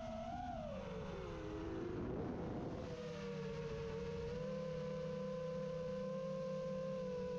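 FPV quadcopter's motors and propellers whining, the pitch falling and wavering with the throttle for the first couple of seconds, then holding one steady tone from about three seconds in.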